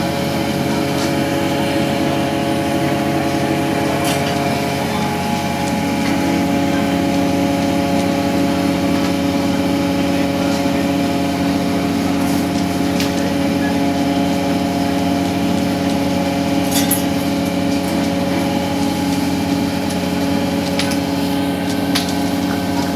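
Steady drone of machinery aboard a longline fishing vessel, with a few sharp clicks or knocks.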